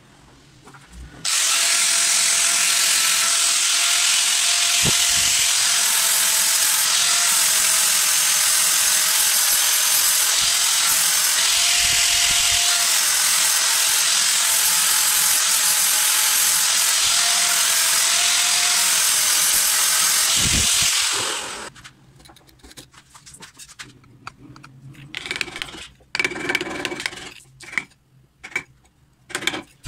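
Handheld angle grinder running under load, its disc grinding down the rough metal of a bench vise, its steady whine dipping slightly in pitch now and then as the disc bites. It starts about a second in and stops after about twenty seconds, followed by short, irregular scratching noises.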